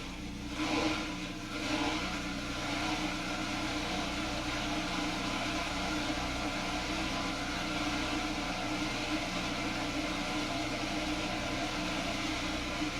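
Dishwasher running: a steady hum with an even hiss over it, after two brief swells in loudness in the first two seconds.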